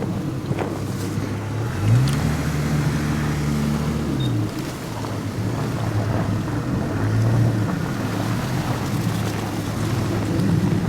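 Vehicle engines idling steadily. About two seconds in, a motor winds up, runs for about two seconds and winds back down.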